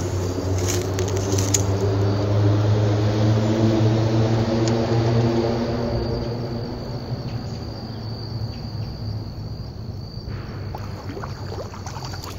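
A distant motor droning steadily, swelling over the first few seconds and fading away after about six seconds, with a high, steady insect trill behind it.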